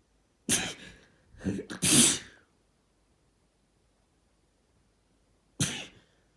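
A person sneezing several times. A sharp sneeze comes about half a second in, a quick cluster of bursts ends in the loudest sneeze around two seconds in, and another sneeze follows near the end.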